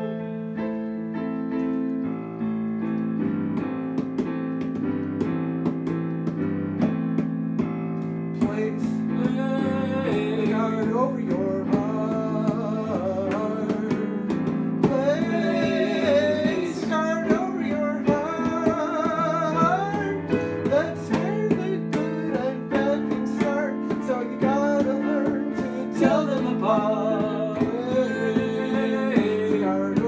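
Instrumental passage on digital piano chords with a harmonica playing the melody, acoustic guitar joining later on.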